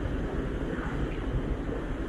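Steady rush of white water foaming along the hull of the Sunflower Ivory ferry under way, with wind buffeting the microphone and a low, even rumble underneath.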